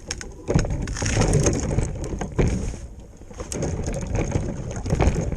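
Loud, irregular crunching with scattered knocks.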